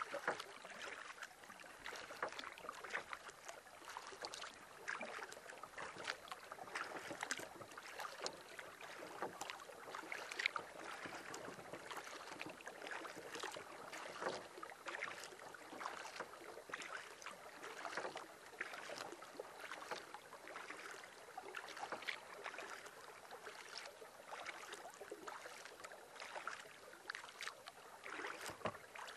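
Light, irregular water splashing and trickling around a canoe on a lake: paddle strokes and small splashes against the hull, without a steady rhythm.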